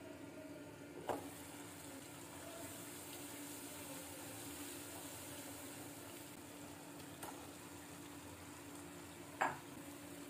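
Onion-tomato masala sizzling faintly in a pan as it is stirred, with three sharp knocks, likely a wooden spatula against the pan, about a second in, midway and loudest near the end.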